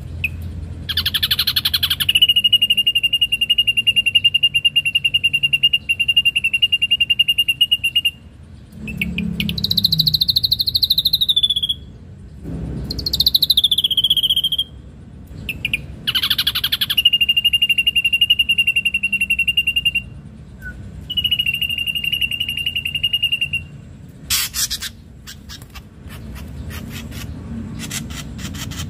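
Ashy drongo singing loudly. It gives long, even buzzing trills held on one pitch for several seconds at a time. Between them come short whistled phrases that swoop up and down, and a run of sharp clicks comes near the end.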